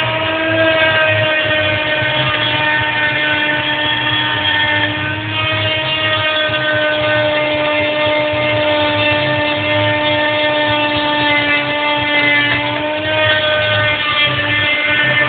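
CNC milling machine's spindle running with a steady high whine as it cuts 2.5 mm ABS plastic sheet, the pitch dipping slightly a few times, over a low rumble.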